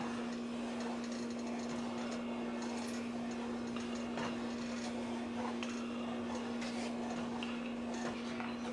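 Wooden spoon stirring thickening yellow corn grits in a metal saucepan: soft, irregular scrapes and small clicks over a steady low hum.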